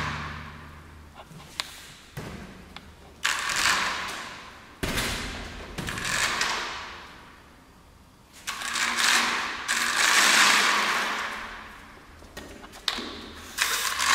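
Toy car's small electric drive motor and plastic gearbox whirring in several bursts of a second or two, each starting abruptly and fading out. A relay switches the motor on whenever the car's IR sensor detects an obstacle, so the car drives into whatever is in front of it.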